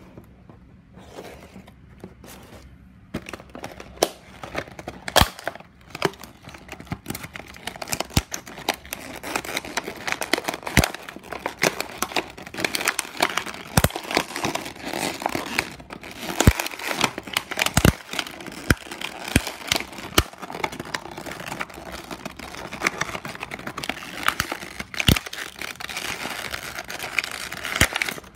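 Plastic blister pack of a diecast toy car crinkling and crackling as it is handled and pulled open by hand, with many sharp clicks and snaps. It starts about three seconds in.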